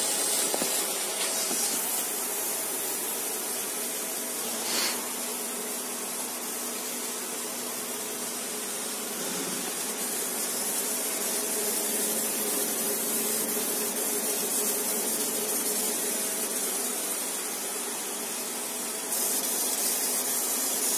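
Steady hiss of air from industrial machinery, with a faint low hum under it. There is a brief knock about five seconds in, and the hiss grows louder near the end.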